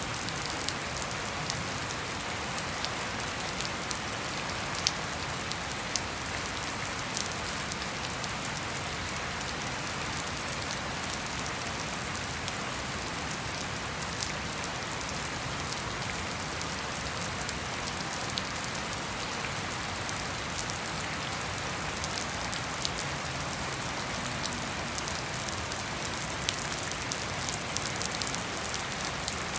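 Steady rain falling on trees and a wet lawn, an even patter with scattered sharper drop taps, which come more often near the end.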